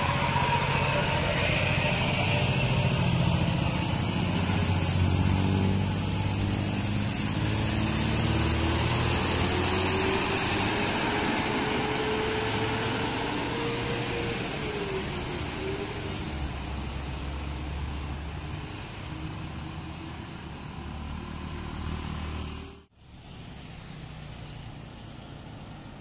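Coach bus engine pulling up a steep wet grade and passing close by, its pitch rising slowly over several seconds, with tyre hiss on the wet road and other traffic around it. The sound drops out abruptly near the end and gives way to a quieter steady traffic hum.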